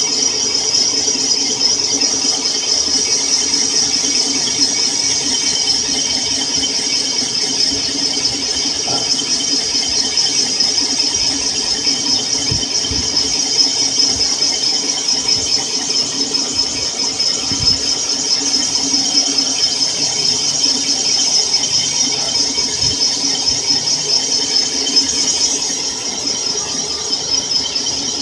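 Cylinder boring machine cutting an engine block's cylinder bore: a steady, high-pitched squeal from the rotating boring bar with a slight warble, over a lower steady machine tone, easing a little near the end.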